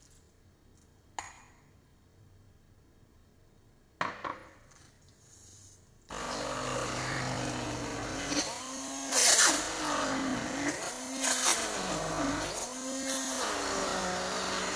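Two sharp knocks, then about six seconds in an electric mixer switches on and runs loudly. Its motor pitch dips and recovers about once a second as the beaters work through thick cheesecake batter.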